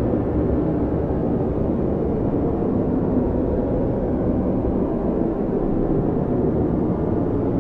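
Strong blizzard wind blowing steadily, a loud, even, low rushing noise with no gusts standing out.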